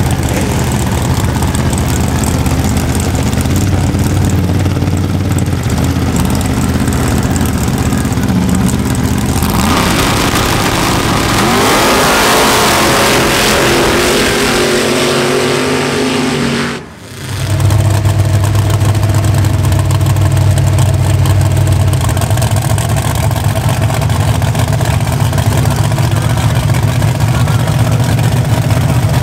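Loud engines of sand drag trucks on paddle tires. A lumpy idle gives way, about ten seconds in, to a hard launch with the engine revving up and sand spraying. After a sudden break, another truck's engine idles loudly and steadily at the start line.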